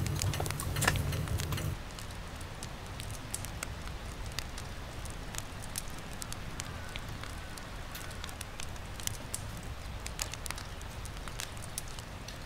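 Wood fire in a small camping wood stove crackling, with scattered sharp pops over a steady low rumble. A louder low rumble stops abruptly about a second and a half in.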